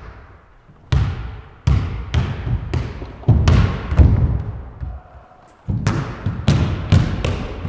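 Basketball bouncing on a hardwood gym floor: a run of irregularly spaced bounces, each followed by a short echo in the hall.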